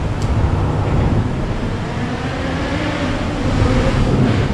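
Road traffic crossing the bridge overhead: a loud, steady low rumble, with a vehicle's engine tone swelling in the second half.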